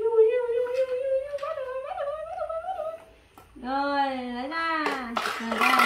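A woman humming without words: a long high note that slowly rises, a short pause, then a lower hum from about three and a half seconds in, with a burst of noise near the end.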